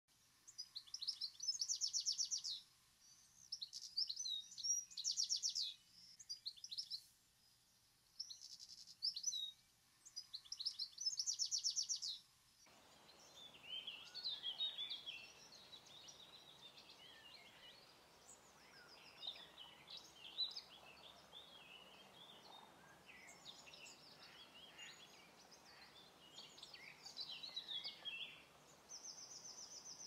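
European goldfinch singing: four phrases of liquid twittering broken by rapid buzzy trills, each about two seconds long with short pauses between. About thirteen seconds in, the sound changes to fainter, more scattered goldfinch twittering over a steady background hiss.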